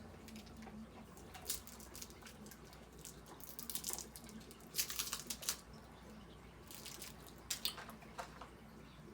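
Rustling and crinkling from an item being handled close to the microphone, in several short bursts. The loudest burst comes about five seconds in.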